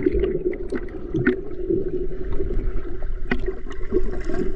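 Underwater sound heard through a submerged GoPro in a swimming pool: muffled churning water and bubbling, with scattered small clicks and taps.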